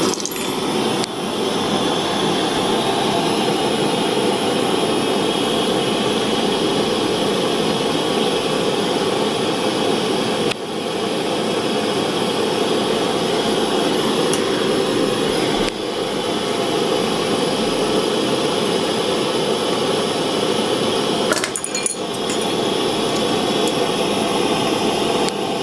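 Small soldering torch flame hissing steadily, used for silver-soldering a metal eyeglass frame hinge, with a brief dip and a few light clicks along the way.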